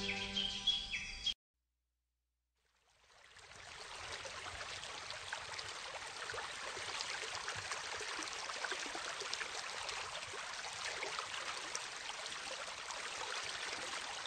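Background music with held notes cuts off about a second in; after a moment of dead silence, an outdoor ambience fades in: a steady hiss of countryside background noise with faint bird chirps.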